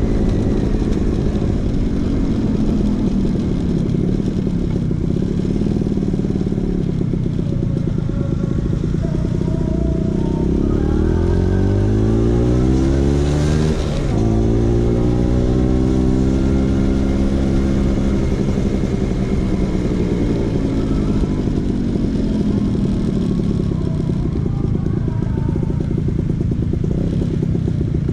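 Vespa PX 150's two-stroke single-cylinder engine running through a DRC Victory racing exhaust, its note rising and falling. About halfway through it climbs steeply, breaks off abruptly, then holds and sinks lower before rising again near the end.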